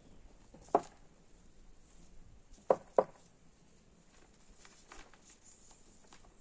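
Three sharp knocks: one about a second in, then two in quick succession near three seconds, with faint small clicks and rustles between.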